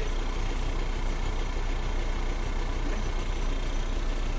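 Large vehicle engine idling steadily, a constant low drone with no change in speed.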